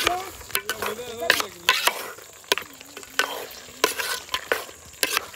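A cooking spoon stirring food in a pot, knocking and scraping against the pot's side about once or twice a second, with the food sizzling.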